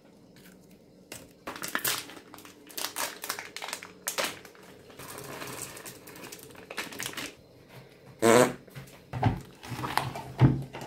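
A foil packet crinkling as it is handled, then a metal spoon stirring peanuts in a glass bowl, with louder knocks and scrapes against the glass near the end.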